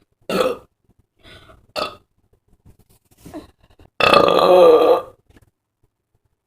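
A person burping deliberately: a few short burps in the first two seconds, then a loud, drawn-out burp lasting about a second, starting about four seconds in.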